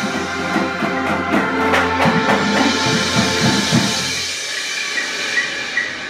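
Marching band of brass, winds and front-ensemble marimbas playing a loud held passage over mallet strikes. The low brass stops a little past four seconds in, leaving a lighter texture with even high ticks about twice a second.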